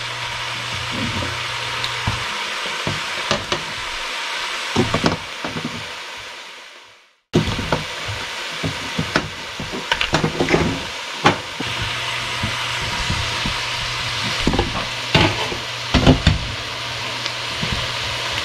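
Crab and vegetables sizzling in a stainless steel wok, stirred with a spatula that knocks and scrapes against the pan. About a third of the way through, the sound fades out to silence, then comes back abruptly.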